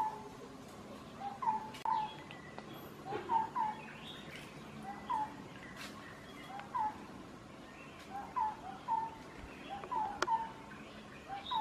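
A bird calling over and over in short double notes, repeated about every second and a half, with a few faint clicks.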